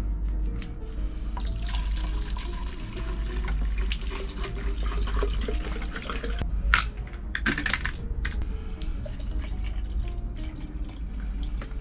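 Cleaning liquid poured from a plastic jug into a tall plastic container, filling it, with background music playing over it.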